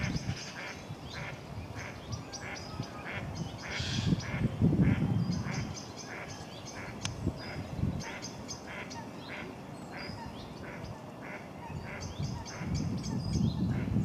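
Waterbirds calling: a short call repeated over and over, roughly two a second, with quicker high-pitched bird notes above it. Low rumbling bursts come about four seconds in and again near the end.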